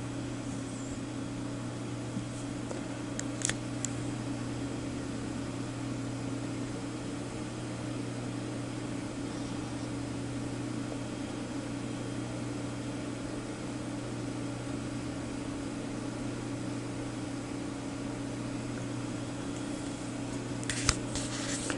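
Steady electrical hum over a fan-like background noise, with a few faint clicks about three seconds in and again near the end.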